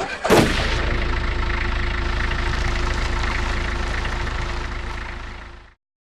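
A vehicle engine sound effect: it starts abruptly and runs steadily with a low rumble, then fades out near the end.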